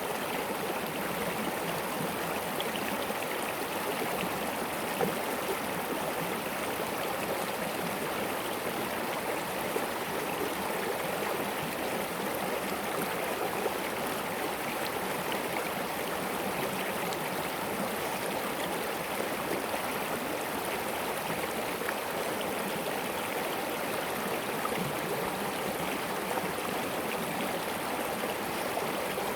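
Mountain stream of glacier water rushing and splashing over stones: a steady, even rush of flowing water.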